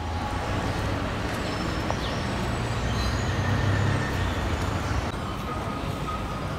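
Steady outdoor traffic noise: a low rumble of passing road vehicles with a broad hiss above it, easing a little about five seconds in.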